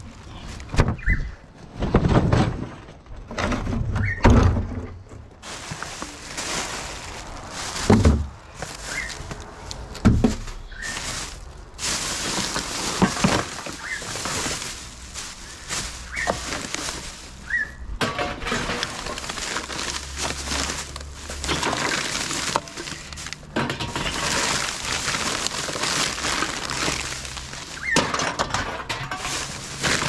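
Rubbish being handled in plastic wheelie bins: several thuds from the bins and their lids in the first dozen seconds, then plastic garbage bags rustling and crinkling steadily as they are pulled about.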